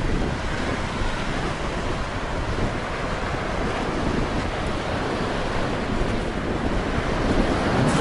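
Rough Black Sea surf: waves breaking and washing up the shore in a slight storm, with strong wind buffeting the microphone.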